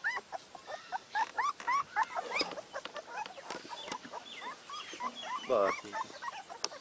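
A litter of young puppies whimpering and squealing: many short, high, rising cries overlapping one another, with a longer, lower whine about five and a half seconds in.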